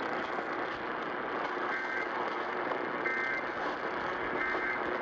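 Three short two-tone digital data bursts, the Emergency Alert System end-of-message code, each about a third of a second long and about 1.3 seconds apart, faint under the steady hiss and static of long-distance AM radio reception.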